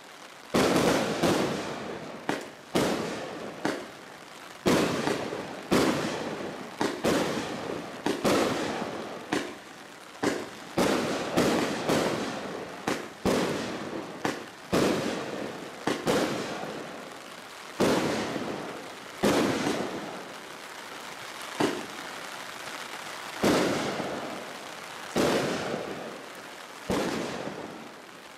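Bright Star Thunder Bomb 100-shot 1.3G firework barrage firing shot after shot: about one sharp bang a second, each trailing off over about a second before the next.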